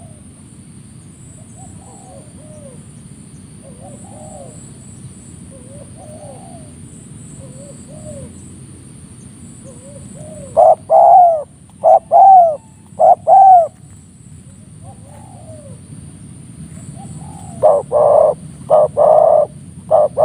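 Spotted doves cooing. A faint coo phrase repeats every couple of seconds, then loud coos come in two bouts: three phrases about halfway through and several more near the end.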